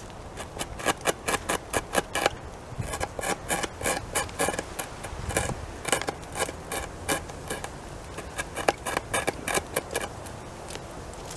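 Beaver gnawing into the trunk of a felled tree with its incisors: a rapid, irregular run of sharp crunching bites into the wood, several a second, stopping shortly before the end.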